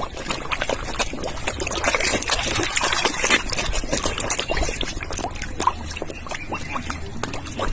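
River water splashing and trickling: a dense run of small splashes, busiest in the middle.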